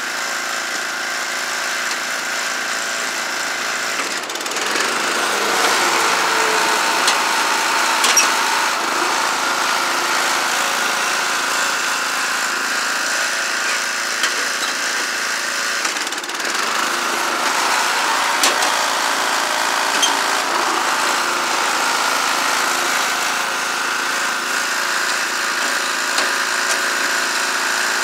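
6 HP Briggs & Stratton single-cylinder flathead engine, running a riding mower with a milled head for higher compression, pulling under load. It gets louder about four seconds in and again about sixteen seconds in as it is throttled up to drive the mower.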